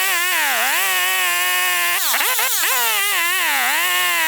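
Stihl 028 AV Super chainsaw's two-stroke engine running at high revs, its pitch dipping and climbing back again several times.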